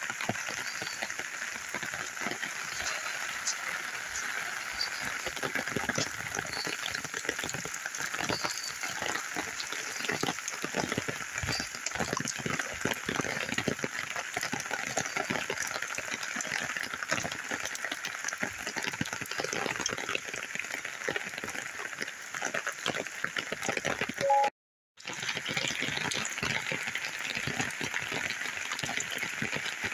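Steady storm rain pattering on an open umbrella, a dense crackling patter. The sound cuts out for under a second about three-quarters of the way through.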